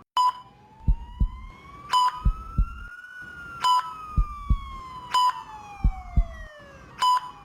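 Sound effect of an ICU patient monitor: a short high beep about every one and a half seconds over a steady double heartbeat thump. Across the middle a slow siren-like tone rises for about three seconds, then falls away.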